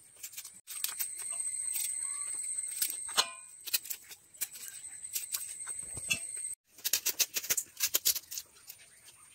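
Kitchen knife slicing vegetables held over a plastic plate, heard as a run of irregular sharp clicks and taps of the blade, with a steady high-pitched whine behind that stops about two-thirds in.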